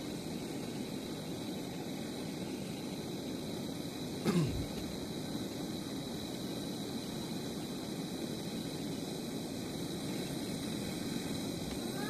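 Gas torch burning with a steady hiss, its flame heating the copper tubing at a refrigerator compressor to braze on a charging valve. About four seconds in there is one brief, louder sound that falls in pitch.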